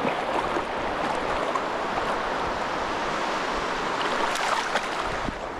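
Steady wash of shallow surf at the water's edge, with a few short splashes about four to five seconds in as a large European sea bass is gripped and moves in the shallows.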